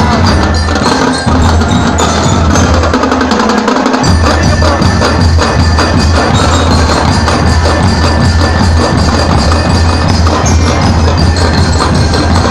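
Drum and glockenspiel corps playing live: glockenspiels ring out a melody over fast, steady drum beats.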